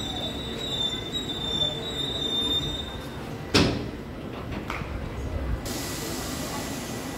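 Passenger train wheels squealing on the rails in a steady high whine over the train's running rumble; the squeal stops about three seconds in. Just after it, a single loud clank, then a fainter knock about a second later.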